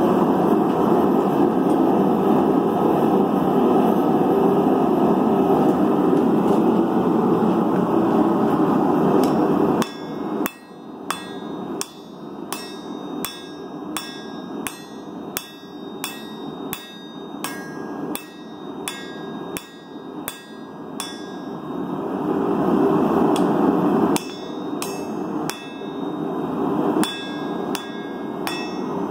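A forge running with a loud, steady roar for about ten seconds, then a hammer striking hot steel on an anvil, about two ringing blows a second, as the tomahawk head's top edge is straightened.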